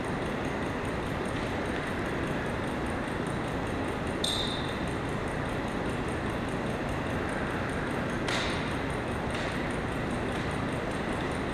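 Steady hiss of room noise in a large hall. About four seconds in there is a single short, ringing ping, and near eight seconds a sharp click followed by a couple of fainter clicks.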